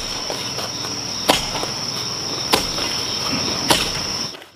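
Steady high-pitched insect drone, with three sharp knocks evenly spaced a little over a second apart; the drone cuts off near the end.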